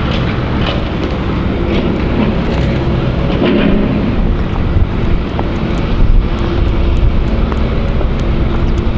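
Wind buffeting the microphone: a loud, steady low rumble, with stronger gusts about six seconds in.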